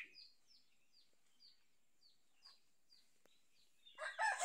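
A small bird repeating short, faint, falling chirps, two or three a second; near the end a rooster starts crowing loudly.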